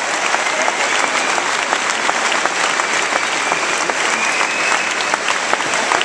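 Large concert audience applauding steadily, dense clapping with a few long, high drawn-out whistles over it.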